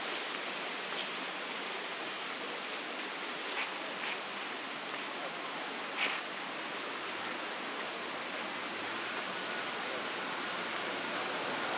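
Steady outdoor background hiss with no clear source, with a few faint ticks about a third and halfway through.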